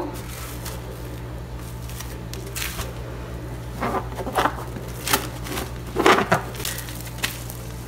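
Plastic cling film crinkling and rustling in scattered short handfuls as it is pulled off the roll and wrapped around a ball of pie dough, over a steady low hum.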